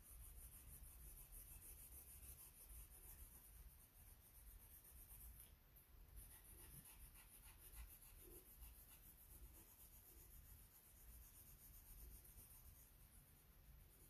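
Faint scratching of a colored pencil shading paper in many quick, short strokes.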